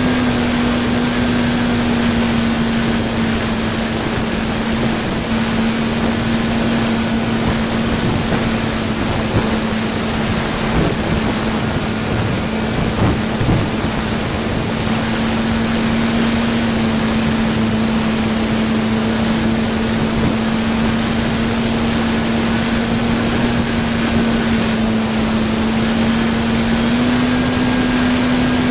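An RC park flyer's electric motor and propeller run at a steady drone, heard from a camera strapped in the plane's cockpit, under heavy wind rush. The pitch rises a little near the end.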